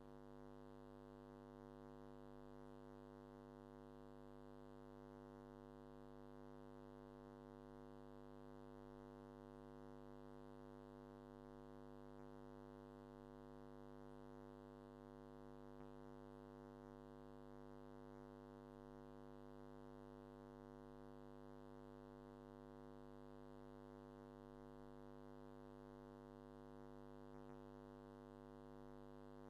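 Faint, steady electrical mains hum with a buzzy stack of overtones, unchanging throughout; nothing else is heard.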